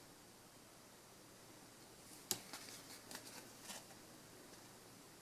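Near silence, broken about two seconds in by a few faint taps and rustles of trading cards being handled.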